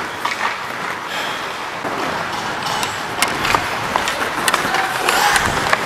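Ice hockey skates scraping and gliding on the rink ice, with scattered sharp clicks of sticks and puck.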